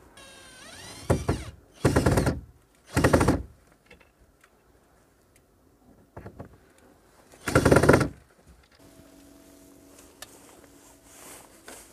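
Power screwdriver driving screws for garland fasteners into a house wall, in four short bursts of about half a second each, with a quick falling whine before the first.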